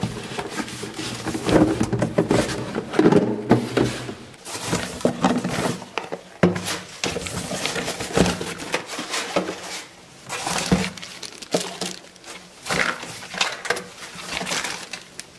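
Cardboard parts boxes being lifted out of a shipping carton and set down: rustling and scraping of cardboard with irregular knocks.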